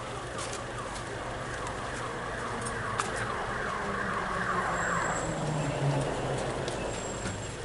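Emergency vehicle siren in a fast repeating yelp that stops about five seconds in, with a sharp crack about three seconds in.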